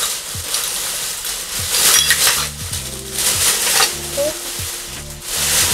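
Plastic bag rustling and crinkling in bursts as clothes and belongings are stuffed into it, over background music with a steady beat.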